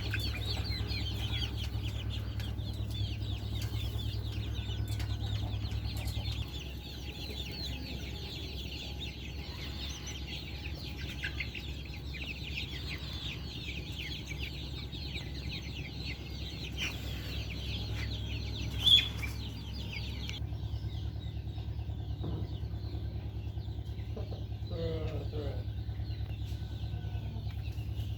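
A flock of hens clucking and chattering over a steady low hum, with one sharp loud click about two-thirds of the way through. The dense high chatter thins out soon after, leaving a few separate clucks.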